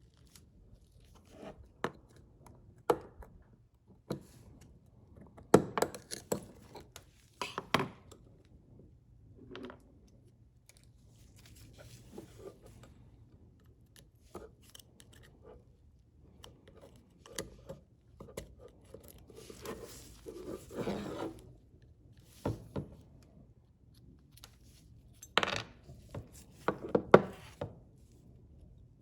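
Small metal parts of a disassembled Craftsman 3/8-inch ratchet being handled and examined: scattered clicks, taps and short scrapes, with a longer rubbing scrape about two-thirds of the way through and the sharpest knocks near the end.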